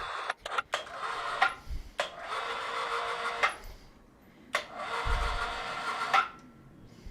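A winch running in several short bursts of mechanical whirring, separated by clicks, as it takes up the cable and lifts about 100 lb of tractor weights. A low thump comes about five seconds in.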